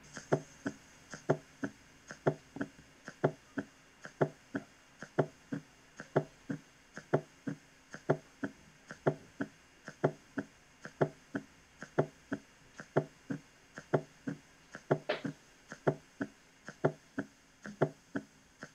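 Recorded heart sounds as heard through a stethoscope, with an S4 atrial gallop: a steady run of short heartbeat thuds in which an extra sound falls just before each S1. It is the sign of a stiff, non-compliant ventricle and is always pathological. One sharper click comes near the end.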